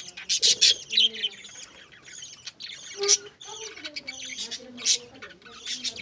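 A flock of budgerigars chirping and chattering: a dense, continuous run of short, high chirps.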